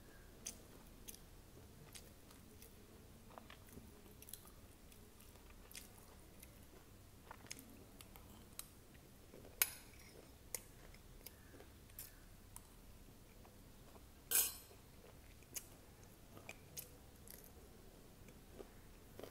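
Close-miked chewing of poha, flattened rice with crunchy sev, giving faint scattered crisp crunches. Two louder sharp sounds stand out, about ten seconds in and about fourteen and a half seconds in.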